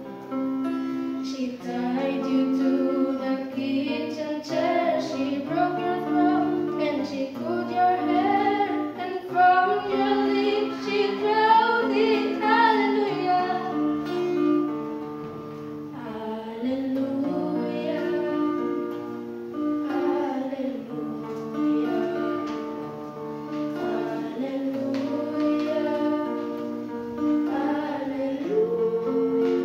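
A teenage girl singing a song into a microphone, with an electric guitar accompaniment of steady held chords that change every second or two.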